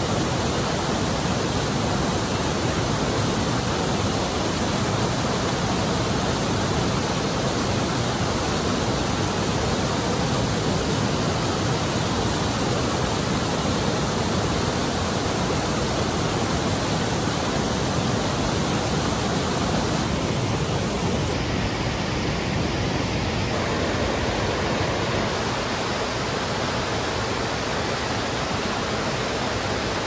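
Waterfall pouring: a steady, dense rush of falling water. Its tone shifts slightly about two-thirds of the way through.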